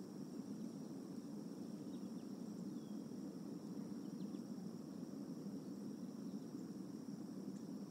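Outdoor summer-evening ambience from a nest cam: a steady high-pitched insect drone over a low, even rumble, with a few faint short chirps about two to four seconds in.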